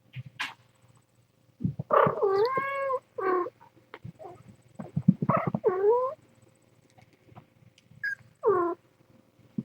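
Cats meowing: about five calls, the first long and wavering in pitch, the others shorter, with soft low knocks around them.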